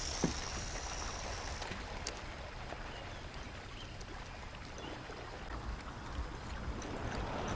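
Water lapping and trickling around a kayak on the river, over a low rumble, with one sharp click just after the start.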